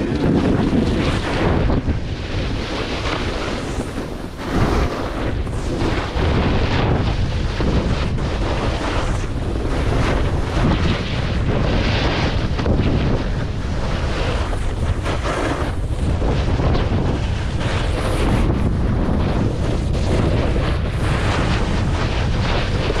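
Wind rushing over an action camera's microphone at speed on a ski slope, with the hiss and scrape of edges carving across snow swelling and fading about once a second with each turn.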